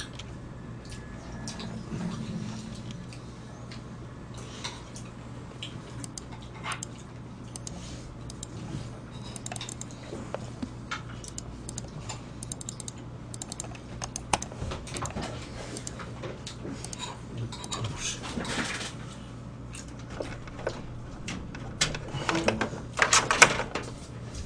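Computer keyboard and mouse being clicked and typed on in irregular runs, busiest near the end, over a steady low electrical hum.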